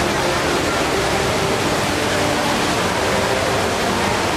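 The HSBC Rain Vortex indoor waterfall pouring steadily: a dense, even rush of falling water.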